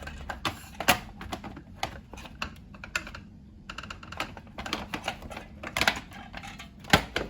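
Irregular clicks and taps of an LED track light fitting being handled on its rail, the button on the fitting pressed and the module snapped in and out, with a few louder clicks about a second in and near the end.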